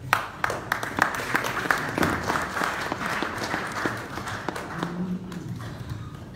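Audience applauding, a dense patter of claps that dies away after about four seconds.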